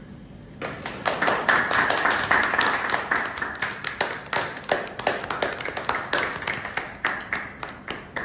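Audience applauding. The applause starts suddenly about half a second in and thins toward the end into more separate claps.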